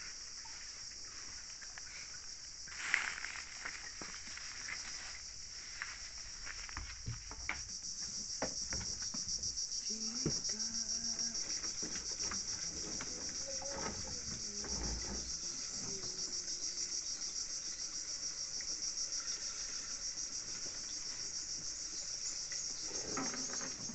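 Dense insect chorus: a steady, fast-pulsing high-pitched trill that grows louder about eight seconds in. Beneath it come faint knocks and gurgles as fuel is poured from a plastic jerry can into a boat's fuel tank.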